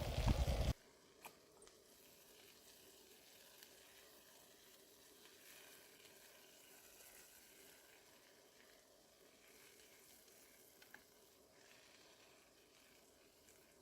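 Food frying faintly in a pan, a soft steady sizzle with a couple of small ticks. It is preceded by under a second of louder rushing noise that cuts off abruptly.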